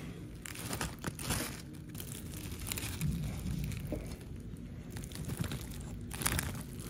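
Leaf wrapper of a machang (sticky rice dumpling) crinkling in several short rustles as a spoon and fork pull it open.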